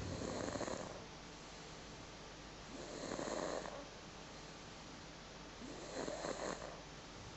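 A 16-month-old toddler snoring in her sleep: three snores about three seconds apart, each lasting about a second, with quieter breathing between them.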